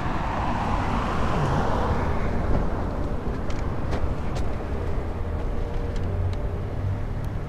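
Steady outdoor vehicle and traffic noise with a low rumble, with a few faint clicks.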